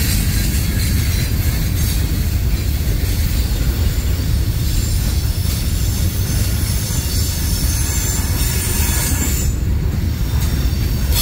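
Freight train cars (boxcars and covered hoppers) rolling steadily past: a continuous heavy rumble of steel wheels on rail, with faint high-pitched wheel squeal at times.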